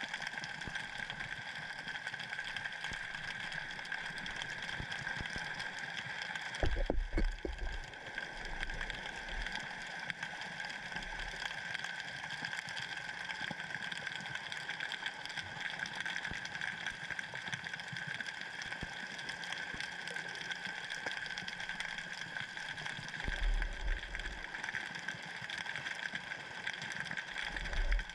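Underwater sound picked up by a camera in a waterproof housing drifting in the current: a steady hum and hiss, broken by a few low thuds, about a quarter of the way in, again late on, and at the very end.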